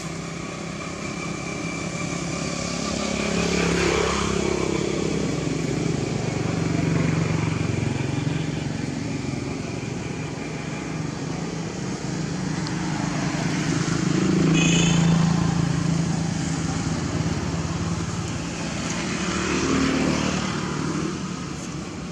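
Motor vehicles, likely motorbikes, passing on a road: engine noise swells and fades about four times, loudest about fifteen seconds in, with a brief high squeak at that point.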